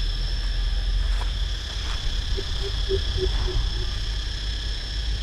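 A coucal calling: a short run of about six deep hooting notes, evenly spaced and fading away, over a steady high drone of insects.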